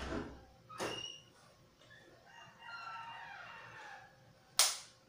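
A rooster crowing, one long call from about two to four seconds in. Two short knocks come near the start, and a short, sharp burst of noise, the loudest sound, comes near the end.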